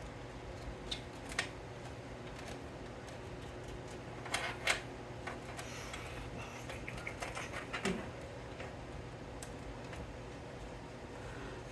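Scattered small plastic clicks and rattles of cables and connectors being handled and plugged in inside a PC case, over a faint steady hum. A cluster of louder clicks comes about four to five seconds in, then a run of light ticks.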